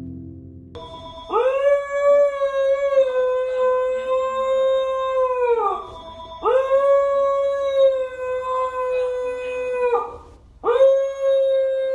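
A husky howling: three long, steady howls, each held for several seconds before dropping away in pitch. The third is still going at the end.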